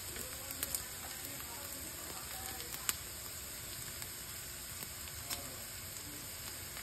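Chopped red onions, green chillies and curry leaves sizzling steadily in hot oil in a nonstick frying pan, with a few faint ticks.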